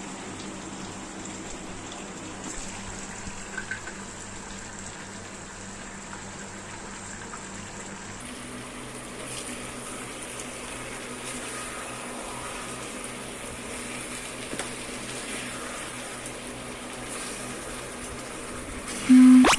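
Chicken, onions and garlic sizzling steadily in oil in an iron kadhai over a burner, with a faint low hum underneath. A short loud low tone sounds near the end.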